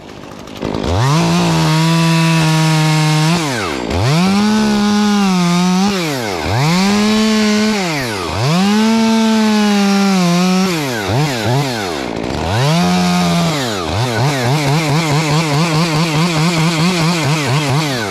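Two-stroke chainsaw started up and revved hard several times, each time dropping back before rising again, with a few quick throttle blips. Near the end it is held at high speed with a fast, regular wavering in pitch.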